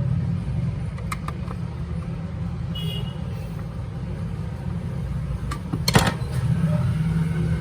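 A few light clicks and taps from small parts and a hand tool being handled while a small speaker casing is tightened up. The loudest cluster of clicks comes about six seconds in, with a short high chirp near three seconds, over a steady low background rumble.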